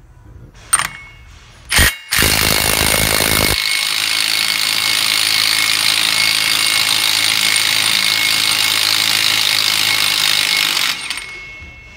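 Milwaukee M18 Fuel 3/8-inch cordless impact wrench hammering a large axle nut loose for about a second and a half. It then spins the freed nut off with a steady high whine for about seven seconds and stops. Two metallic clicks come just before, as the socket is fitted onto the nut.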